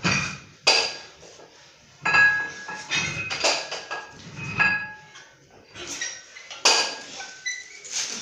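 Iron weight plates clanking against each other and the barbell as they are handled, a series of about ten sharp metal knocks, several with a short ring after them.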